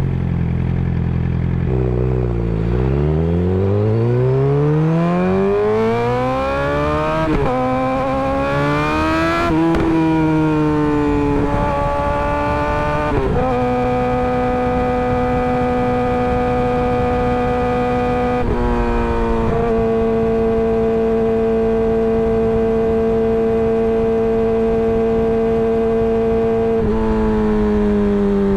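Suzuki GSX-R600 inline-four through an M4 GP slip-on exhaust. It starts at low revs, then pulls up through the gears with a rising note and a short dip at each of four shifts. From there it holds a steady engine note, stepping slightly lower twice.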